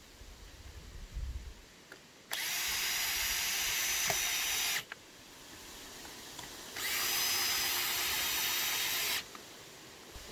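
Power drill running in two bursts of about two and a half seconds each, starting and stopping abruptly.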